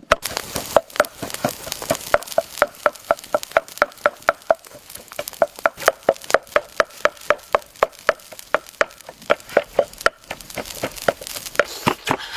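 Rapid, even knocks, about four a second, each with a short ringing tone, like a knife chopping on a board.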